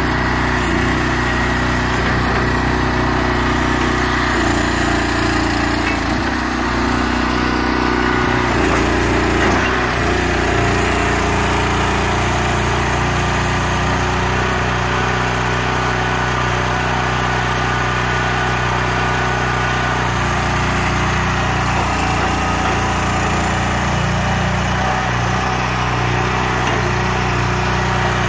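Small engine on a self-propelled guardrail post driver running steadily, powering the machine's hydraulics, with no post-driving blows.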